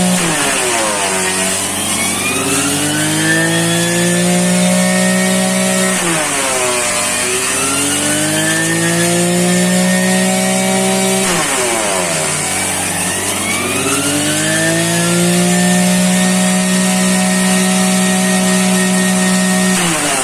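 Small engine of a grass-cutting machine running: its pitch drops sharply, then climbs slowly back up over several seconds, over and over about every six seconds.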